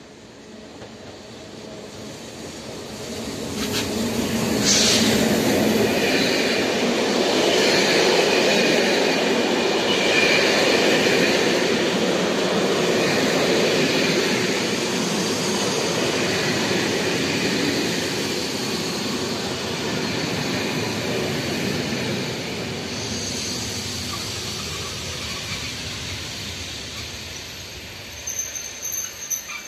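Locomotive-hauled TER train of Corail-type coaches rolling in past the platform and slowing, with wheel and rail noise and wheel squeal. It grows louder over the first few seconds as the locomotive approaches, gives a brief high squeal about five seconds in, then fades gradually as the coaches roll by ever slower.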